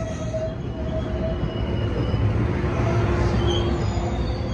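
Metrolink bi-level passenger coaches rolling past close by: a steady rumble of wheels on rail, with thin, steady metallic squeals over it.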